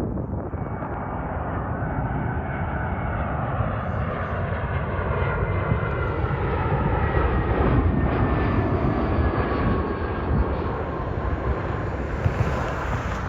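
Jet airliner flying past, a steady engine roar with whining tones that slide slowly down in pitch as it goes by.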